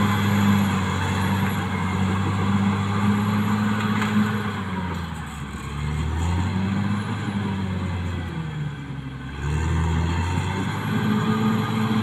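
Caterpillar D6R XL bulldozer's diesel engine running hard and steady. Its note drops and wavers from about five seconds in, then climbs back up near ten seconds as the machine changes direction.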